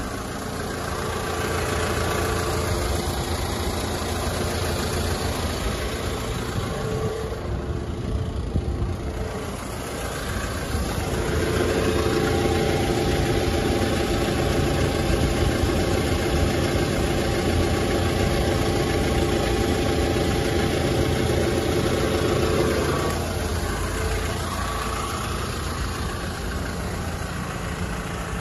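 Hyundai Porter II 1-ton truck's CRDi common-rail diesel engine idling steadily, growing louder for about ten seconds partway through before settling back.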